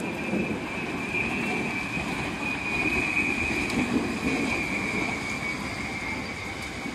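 Heavy downpour of rain, a dense steady hiss with an uneven low rumble under it. A thin, steady high whine runs along with it and sinks slightly in pitch.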